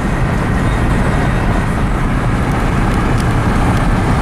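Steady rumble of road and wind noise from a car moving at speed, heard from inside the cabin.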